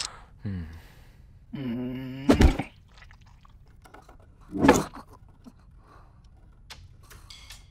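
A low, drawn-out vocal sound, then two loud thuds about two seconds apart, followed by faint scattered clicks.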